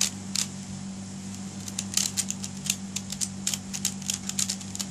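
Shengshou pyraminx being turned quickly by hand, its plastic pieces clicking as they snap into place while it is tested for corner cutting. A few clicks at first, then a fast run of clicks in the middle.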